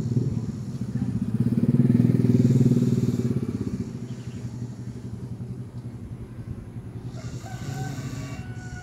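Low, rumbling snoring that swells to its loudest about two seconds in and then settles to a steadier, softer drone.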